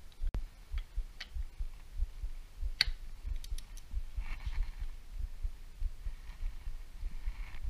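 Scattered sharp clicks and light metal taps from hand tools and engine parts being handled during motorcycle engine reassembly, over a low, irregular thumping. Short scraping noises come in about four seconds in and again near the end.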